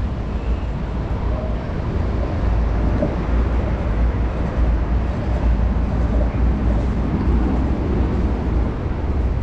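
Steady outdoor city ambience: a continuous low rumble under a general wash of noise, with no distinct events.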